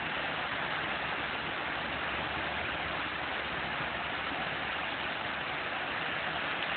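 Steady rush of water pouring over a small waterfall.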